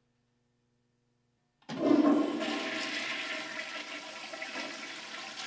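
Toilet in a public restroom stall flushing: near silence, then about a second and a half in a sudden loud rush of water that carries on as a steady rushing.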